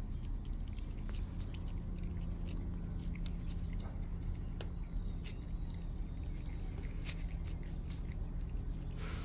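A cat licking paste from a squeeze-tube treat: a run of small, irregular wet clicks of tongue and mouth, over a steady low hum.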